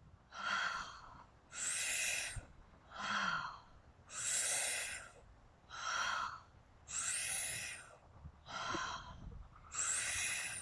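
A woman's loud, paced yoga breathing: strong breaths in and out alternating evenly, about four full breaths, each breath in or out lasting under a second with short pauses between.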